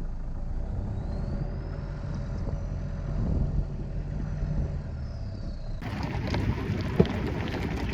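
Jeep Liberty KJ's engine running as it drives an off-road track, a steady low drone. About six seconds in the sound changes abruptly to a brighter, rattly mix with clunks and one sharp knock.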